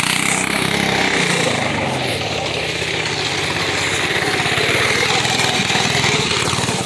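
Small gas engine of an off-road go-kart running with a fast, rapid low putter as the kart drives around on dirt.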